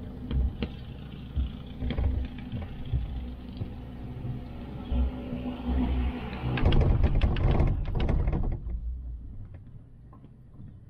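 Chairlift ride: a low rumble with irregular thumps, then, from about six and a half seconds, a loud rattling clatter of rapid clicks for about two seconds as the chair's cable grip rolls through the lift tower's sheave rollers. It dies down to a quieter rumble near the end.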